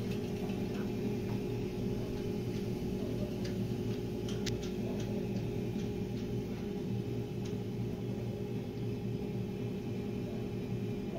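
A steady machine hum in a room, holding several fixed low pitches, with scattered light clicks and taps over it.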